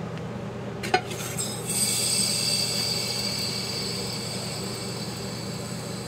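A sharp click as a tiny hole is pierced in an unopened aluminium soda can, then a high-pitched hiss of the pressurized, carbonated soda spraying out through the pinhole, fading slowly.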